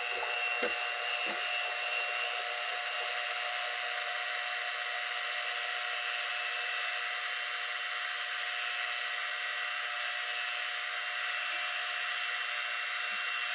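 Revzen electric hand mixer running steadily at low speed, its beaters whipping egg batter and melted chocolate in a glass bowl. A few light knocks come from the beaters about a second in and again near the end.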